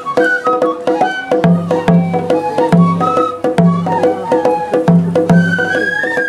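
Japanese festival ohayashi: shinobue transverse flutes playing a lilting melody over taiko drum strokes and quick, sharp wooden clicks.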